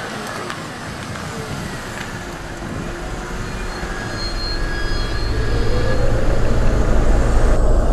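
A steady rumbling noise with hiss that grows louder from about halfway through.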